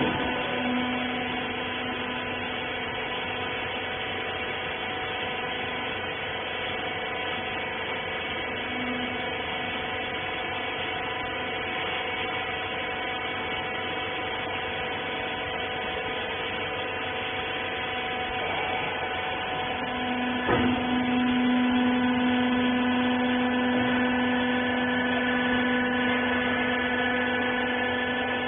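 Hydraulic clothes baler's electric motor and pump running with a steady hum. A sharp knock comes about 20 seconds in, after which the hum gets louder.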